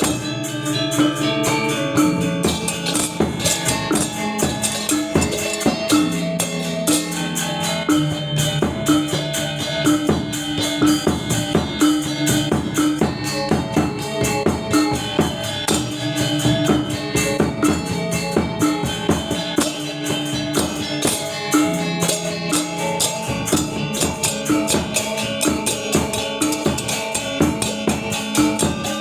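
Balinese gamelan gong ensemble playing: bronze metallophones ringing in fast, dense strokes over held tones, with drums and small cymbals keeping a driving rhythm.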